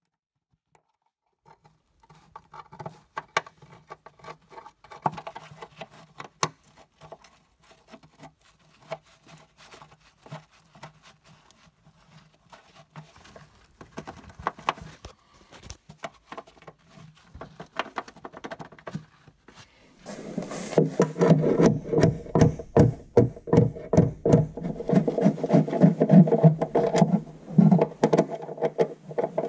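Metal clicking and scraping of a hooked hand tool and a cage nut being worked into a square hole in a car's steel underbody. From about twenty seconds in it turns into a much louder, dense run of rapid clicking and rattling over a steady hum.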